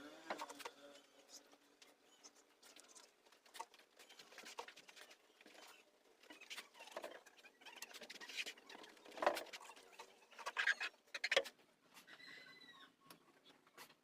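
Irregular scratching, rustling and clicking of hands working sofa foam, loudest in a cluster of sharp scrapes between about seven and eleven seconds in.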